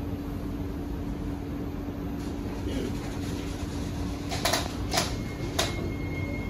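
Steady hum inside a Kawasaki–CRRC Sifang C151C train car standing with its doors closed. Three short clicks come about four and a half to five and a half seconds in, and a faint steady high tone starts near the end.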